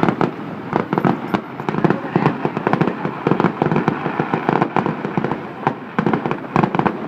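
Fireworks display going off, a dense run of overlapping bangs, pops and crackles with no pause.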